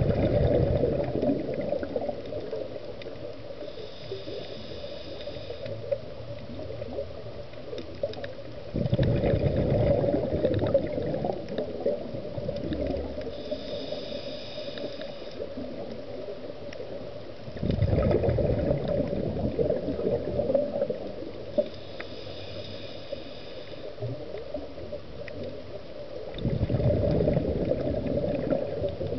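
Scuba diver breathing through a regulator underwater: a burst of exhaled bubbles every eight to nine seconds, four times, with a fainter hissing inhale between each.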